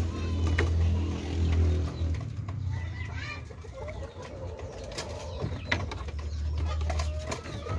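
Chickens clucking and calling, with scattered clicks, over a steady low hum.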